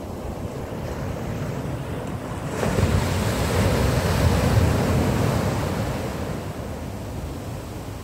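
Ocean waves on a beach: a steady wash of surf, then a wave breaks about two and a half seconds in and the sound swells, staying loud for a few seconds before fading back as the foam runs up the shore.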